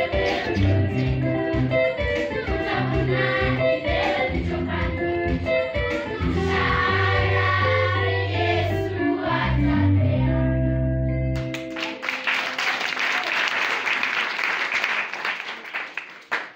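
Children's choir singing with instrumental backing and a steady bass line; the song stops about twelve seconds in and applause follows, dying away near the end.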